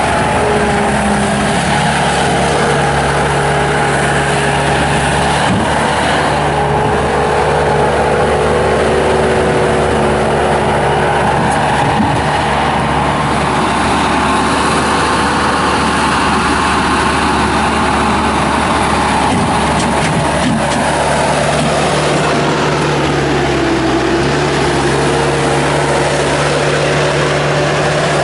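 Bobcat S250 skid steer's turbocharged Kubota diesel engine running steadily at working speed as the loader works a dirt pile; about two-thirds of the way through the engine pitch sags briefly under load and then recovers.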